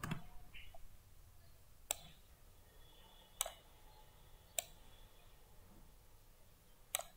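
Computer mouse clicking five times, single sharp clicks spaced one to two and a half seconds apart, over faint room tone.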